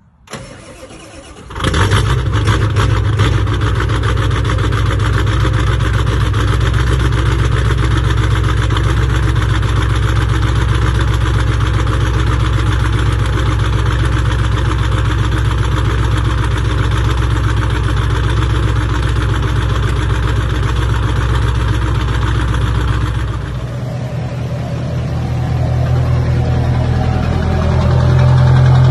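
Diesel engine of a lifted 1990s Ford crew-cab dually pickup cranking briefly, catching about a second and a half in, then running loudly and steadily. Near the end the sound changes to a second pickup's engine idling, growing a little louder.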